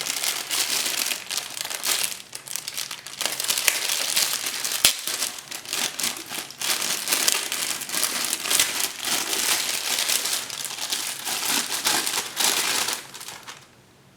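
Packaging crinkling and rustling as a camera body is unwrapped from its wrapping, dense and continuous, stopping abruptly near the end.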